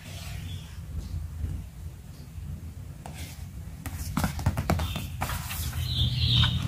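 A cardboard sticker box being handled: a run of light taps and rubbing sounds about four seconds in, over a low steady rumble. A short high chirp near the end.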